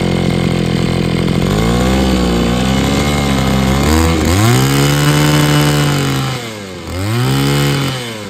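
Mitsubishi TL231 brush cutter's small two-stroke engine running steadily, then revved up and down by the throttle three times. The longest high rev is held for about two seconds in the middle, and it drops back toward idle near the end.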